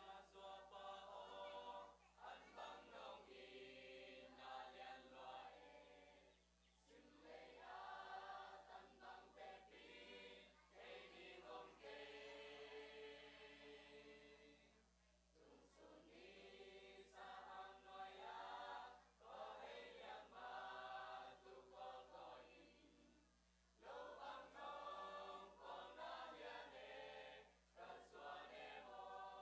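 Mixed youth church choir of boys' and girls' voices singing a hymn in Zomi (Tedim Chin), in sung phrases with brief pauses for breath between them.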